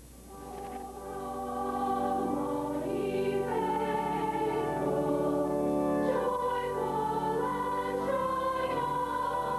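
A girls' choir sings a Christmas piece in sustained, many-voiced harmony, fading in over the first two seconds.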